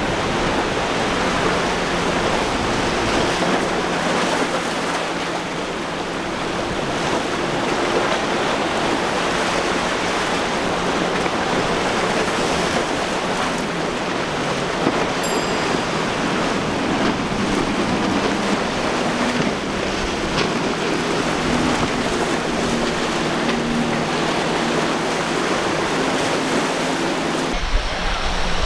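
Center-console boats with outboard motors running fast through choppy inlet water: a steady rush of waves and hull spray, with a faint engine drone underneath.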